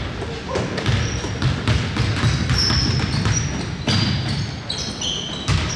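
Basketball play on a hardwood gym floor: the ball bouncing and players' footfalls knocking, with several short, high sneaker squeaks, most of them in the second half.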